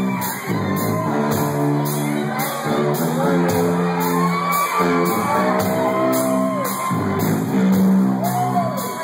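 Live rock band playing loudly, with sustained low chords, a steady drum and cymbal beat and wavering shouted vocals over it.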